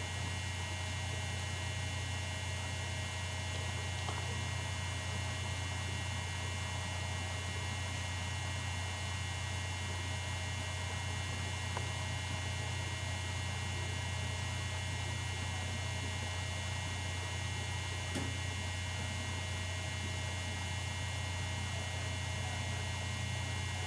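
Steady low electrical hum, with a few faint high steady tones over it.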